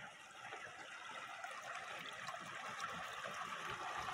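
Muddy water running along a small earthen irrigation ditch, a steady trickling rush that grows slowly louder.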